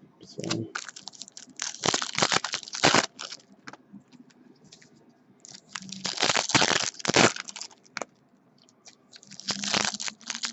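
Trading-card pack wrappers crinkling and tearing as packs are handled and opened, in three bouts of rustling with short quiet gaps between.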